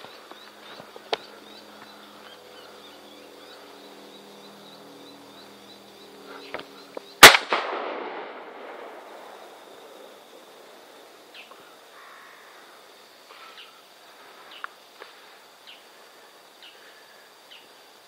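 A single shotgun shot of No. 5 birdshot, about seven seconds in, with its echo trailing off for a second or two. A few light clicks come before the shot.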